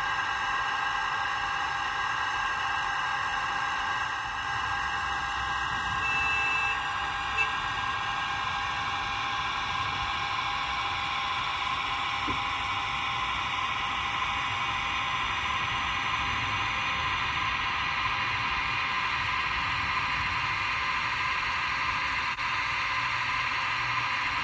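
Steady electric whine and hum from the model railway stock on the layout, with a short high beep about six seconds in and a single click just after.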